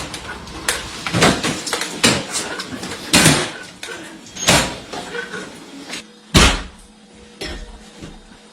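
A series of irregular knocks and bangs, about ten in all, with the loudest about two-thirds of the way through.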